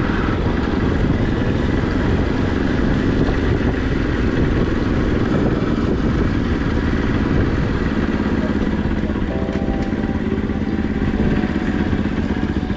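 Motorcycle engine running steadily on the move, with a dense, even rumble and no breaks.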